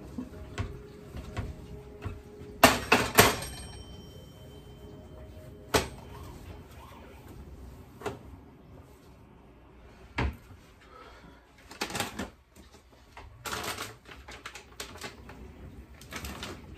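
Irregular clicks and clatter of kitchen items being handled and set down while cleaning. A louder clatter comes about three seconds in, leaving a brief ringing tone as of metal or ceramic.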